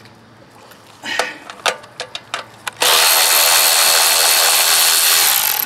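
Cordless ratchet backing out a 10 mm valve-cover bolt: a few sharp clicks as the socket is fitted, then a steady motor whir with a high whine for about two and a half seconds, stopping near the end.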